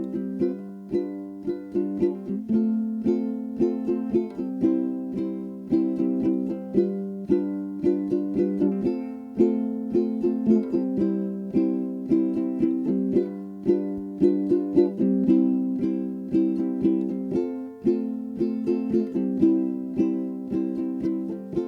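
Background music: a ukulele plucking an upbeat tune in a steady rhythm.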